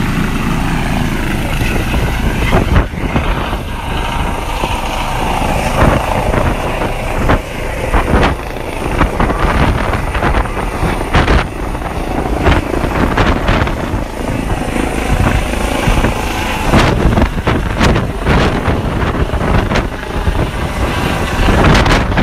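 Medical evacuation helicopter lifting off and climbing overhead, its rotor running loud and steady, with the noise coming in uneven gusts.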